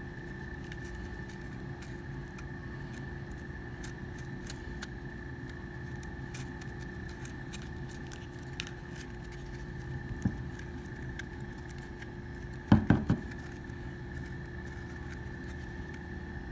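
Hands working a pistol frame: scattered faint clicks and rubbing, with a sharp knock about ten seconds in and a louder cluster of knocks around thirteen seconds in, over a steady background hum.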